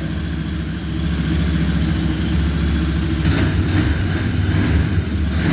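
Royal Enfield Interceptor 650's 648 cc parallel-twin engine idling steadily in neutral through its stock Euro 5 exhaust.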